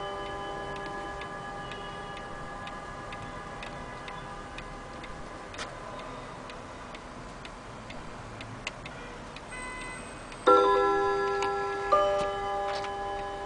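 Vintage West German pendulum wall clock ticking faintly while the ringing of an earlier chime dies away. About ten seconds in the chime strikes as the minute hand reaches the half hour, with a second note about a second and a half later, both ringing on.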